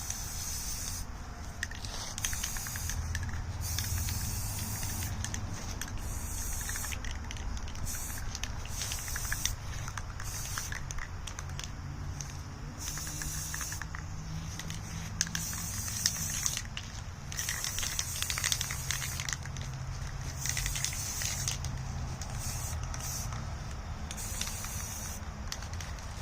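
Aerosol can of flat camouflage spray paint hissing in many short bursts with brief pauses between them, as coats are sprayed onto a steel helmet.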